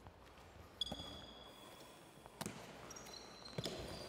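A handball bouncing on a wooden sports-hall floor, three thuds, with sneakers squeaking on the court.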